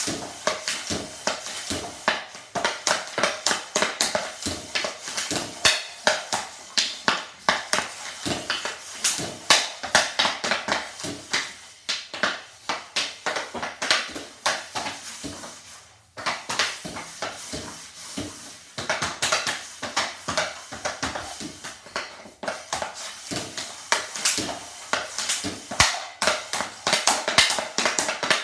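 Rapid, repeated clacks of a hockey stick blade hitting a green biscuit off-ice puck, passed again and again against a bungee triangle passer, with the blade scraping the floor between strikes. The strikes come several a second, with a brief lull about halfway through.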